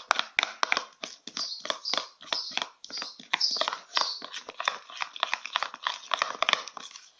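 Slime mixture being stirred in a container after boric acid water was added: a quick, irregular run of wet squelching and clicking strokes. It cuts off abruptly near the end.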